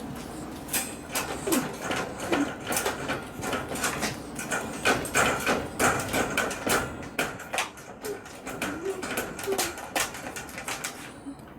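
A miniature dachshund rattling and banging at its wire cage to get out, a fast, irregular run of knocks and clatters. A few brief whines are heard through it.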